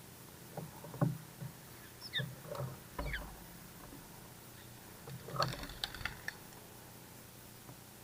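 Small birds feeding on seed on a wooden rail: scattered scratching and pecking taps, a few short falling sparrow chirps about two and three seconds in, and a cluster of quick clicks a little past five seconds.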